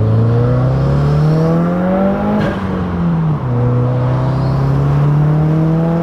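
Subaru WRX's turbocharged boxer four-cylinder engine, heard from inside the cabin, revving up under acceleration for about two and a half seconds. The revs drop with a gear change, and the engine then holds a steady cruising note.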